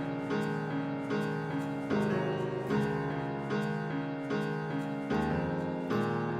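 Background music: a keyboard or piano playing repeated chords in a steady rhythm.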